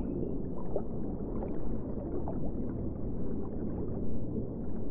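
Underwater ambience: a steady, dull rumble of water with small bubbling blips scattered through it.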